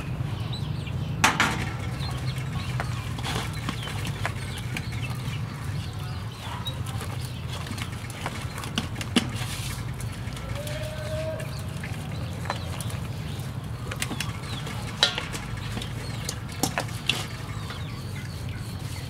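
Hands rubbing seasoning into raw whole chickens in a stainless steel bowl, with wet handling noises and occasional sharp clicks against the metal, over a steady low hum.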